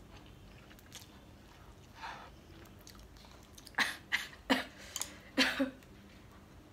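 Mouth sounds of eating instant cup noodles: quiet chewing, then a run of six or so short, sharp slurps and mouth noises about four seconds in.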